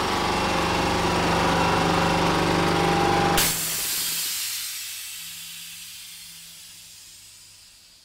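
An air compressor running steadily, then shutting off about three and a half seconds in with a sudden loud hiss of escaping air that fades away over the following seconds.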